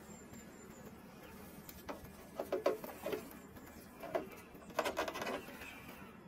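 Traxxas TRX-4 scale RC crawler picking its way over rock: three short bursts of crunching and scraping as its tyres and chassis grind on the stones, with quieter stretches between.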